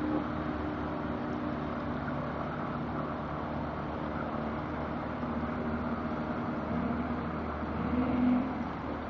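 Outboard motor of a small open boat running steadily over a steady rushing background; it swells louder briefly near the end.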